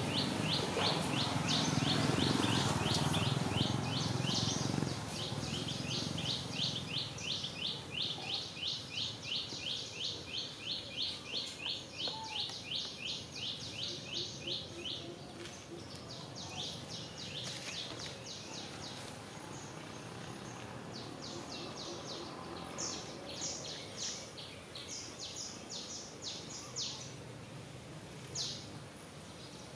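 Birds chirping: an evenly repeated series of short high notes, about three a second, giving way about halfway through to more irregular, higher chirps. A low rumbling noise runs under the first five seconds.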